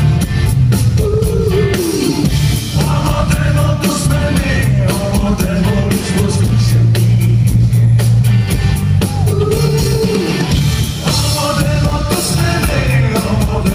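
Rock band playing live: electric guitar, bass guitar and drum kit, with a sung vocal line over them.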